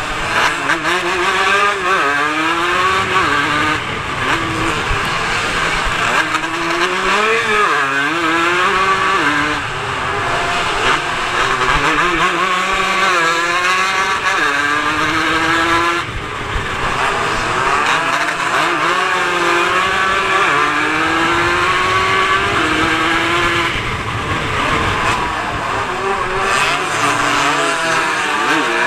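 150cc racing motorcycle engine heard from onboard at full race pace. Its pitch climbs and drops again and again as the rider shifts gears and eases off for corners, with a sudden break about halfway through.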